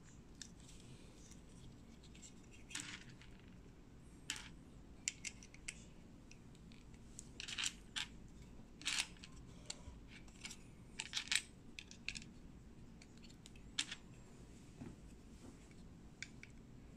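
Small Lego-compatible plastic building bricks being pressed and snapped together by hand: irregular sharp clicks, some in quick clusters, the loudest about eleven seconds in.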